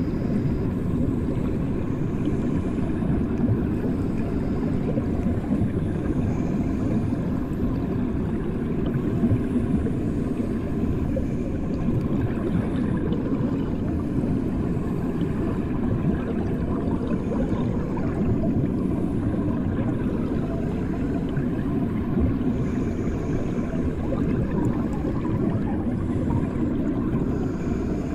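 Muffled underwater sound in a bathtub, as heard with the ears under the water: a steady low rumble with no distinct events.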